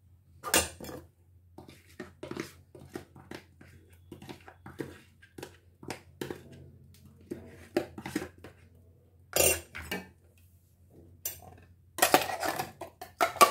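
A steel spoon scraping and clinking against a stainless-steel mixer-grinder jar, its lid and a steel bowl while clearing out wet ground masala. It is a run of small clinks and scrapes, with louder knocks about half a second in, again near the ninth second, and over the last second and a half.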